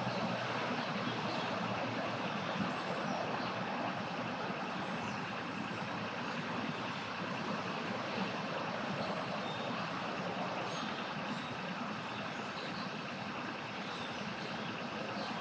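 Motor vehicle engine running steadily, an even noise with no clear changes.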